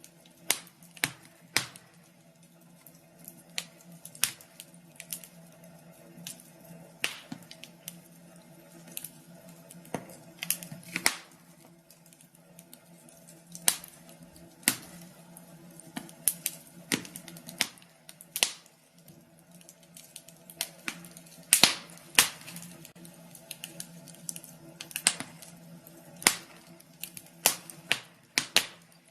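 Wood fire crackling in a fireplace: irregular sharp pops and snaps, one to a few every second, over a faint steady low hum.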